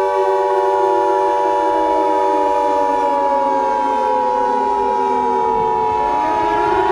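Several civil-defence warning sirens sounding together as a dense chord of steady tones. From about halfway through, some of them wind down, falling in pitch.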